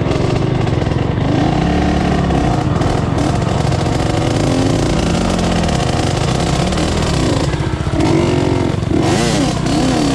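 Dirt bike engine running hard, its pitch rising and falling again and again under throttle, with quicker up-and-down swoops near the end.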